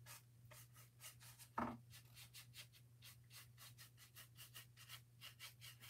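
Faint, quick strokes of a paintbrush applying paint to the wooden edge of a board, about three or four strokes a second, over a steady low hum.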